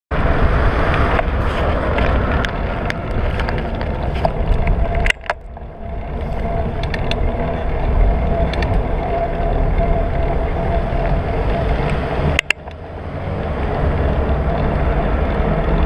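Wind rushing over a bike-mounted camera's microphone with road and tyre rumble from a bicycle riding at about 30 km/h. Frequent small rattles and clicks from the bike over the road, with two sharp knocks about five and twelve seconds in.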